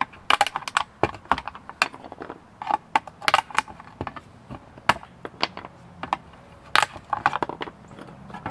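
Screwdriver prying plastic connector guide shrouds off the pins of a circuit board: a rapid, irregular run of sharp plastic and metal clicks and snaps.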